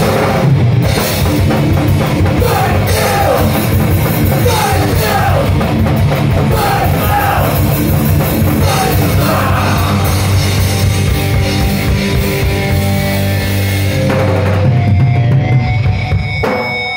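Live heavy rock band playing loud: distorted electric guitar and bass over a drum kit. Through the middle, a note slides downward again and again, about once a second, and the high end thins out about fourteen seconds in, leaving held low notes.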